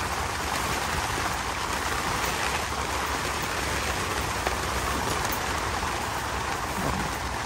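Strong wind blowing steadily, with a low rumble of wind buffeting the microphone.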